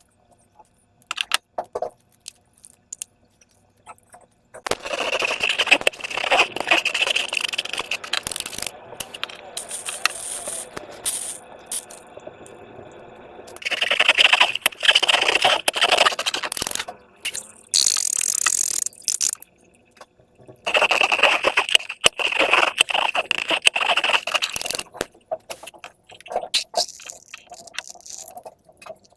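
Slime and rubber balloons being handled by hand, making crackling and scraping sounds in three longer bursts with short clicks between them.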